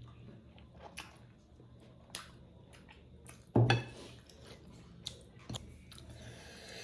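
A person eating juicy buffalo-meat dumplings in soup (jhol momo): soft chewing and squishing with small clicks of cutlery on a dish, and one louder short sound about three and a half seconds in.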